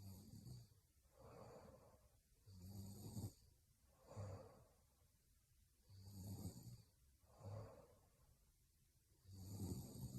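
A young woman snoring softly in her sleep. A low buzzing snore alternates with a softer airy breath, in a slow, even rhythm of about one breath cycle every three seconds, three cycles in all.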